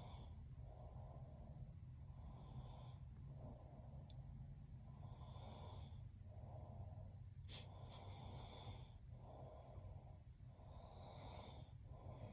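A man snoring softly and rhythmically in his sleep, about one breath every three seconds, over a steady low hum.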